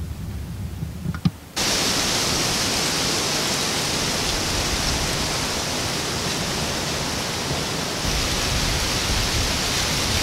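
A steady, even hiss that starts abruptly about a second and a half in, after a quieter low rumble with a single click.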